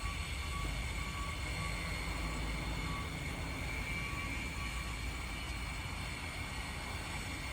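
Steady low background rumble and hum of the shop, with a faint constant high-pitched whine and no distinct knocks or tool strikes.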